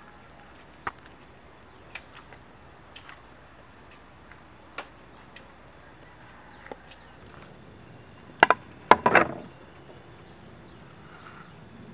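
Scattered light clicks and knocks, with a quick cluster of louder clacks about eight and a half seconds in. Short runs of high bird chirps come now and then.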